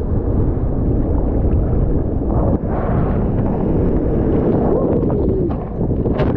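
Wind buffeting the microphone, a loud steady rumble.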